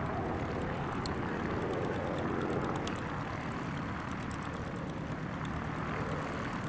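Propeller aircraft engine droning steadily, easing slightly in the first few seconds and then holding level.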